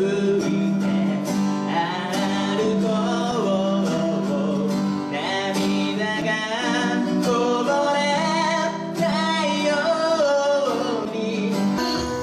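A man singing a song into a microphone while playing an acoustic guitar, amplified live. Just before the end it cuts abruptly to a different piece of music.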